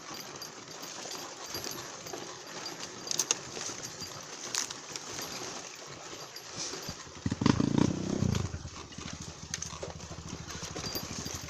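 A single-cylinder four-stroke trail motorcycle engine starts about seven seconds in with a brief burst of revs, then settles into a steady idle. Before it, scattered small clicks and knocks.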